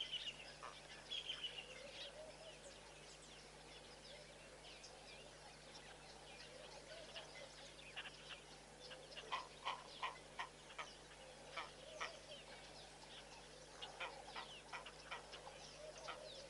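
Wild birds calling: a scatter of short, sharp calls that come thick and fast about halfway through and again near the end.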